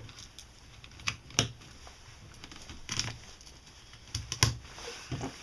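A parang and its stiff new leather sheath being handled: a handful of separate sharp clicks and knocks, the loudest about a second and a half in and again about four and a half seconds in.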